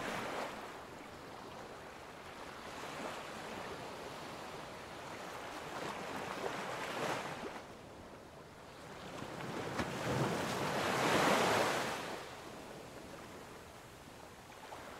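Ocean waves washing onto a beach, the surf swelling and ebbing every few seconds, loudest about eleven seconds in.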